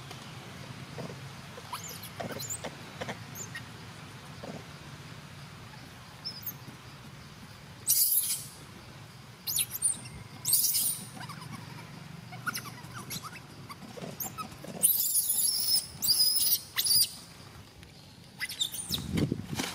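Baby monkey giving short, high-pitched squeaking cries in several bursts, about halfway through and again a few seconds later. A low thump comes near the end.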